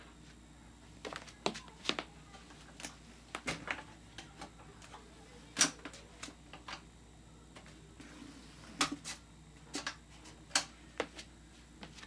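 Irregular sharp clicks and knocks over a faint steady low hum, as a 2008 Galaxy box fan is handled and lifted by its carry handle. The loudest knock comes about halfway through.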